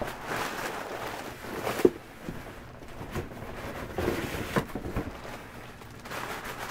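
Cardboard shoeboxes being handled and slid about, scraping and rustling with a few light knocks. The loudest knock comes about two seconds in.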